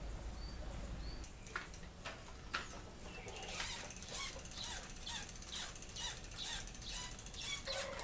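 Trigger spray bottle squirting cleaner onto a bicycle in quick repeated spritzes, about two a second. A few faint bird chirps come near the start.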